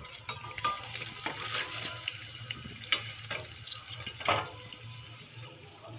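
Vadas sizzling in hot oil during deep-frying, with clicks and scrapes of a metal slotted spoon against the pan as the fried pieces are lifted out, and a sharper knock a little past four seconds.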